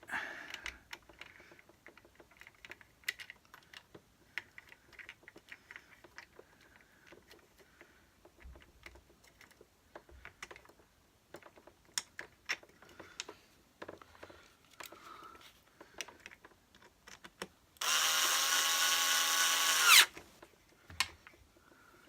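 Cordless electric screwdriver or drill running for about two seconds near the end, at a steady pitch, while refitting a part of a vacuum cleaner. It ends in a sharp click. Before it come scattered light clicks of plastic parts and screws being handled.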